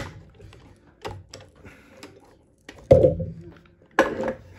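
A few separate sharp clicks and knocks as one-handed bar clamps are released and taken off a scooter wheel, the loudest two near the end.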